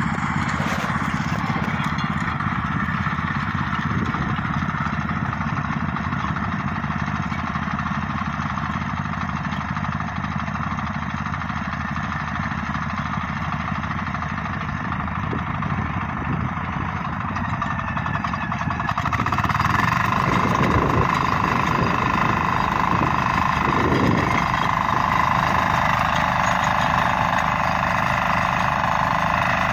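Walk-behind motor tillers running steadily as they churn the soil around the trees. About two-thirds of the way through the engine noise grows louder.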